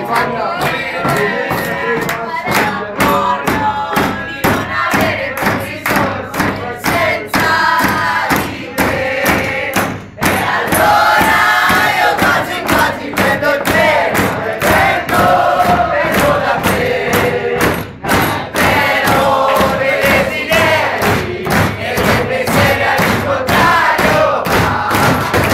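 A group of people singing and chanting together loudly over a steady beat of sharp strokes.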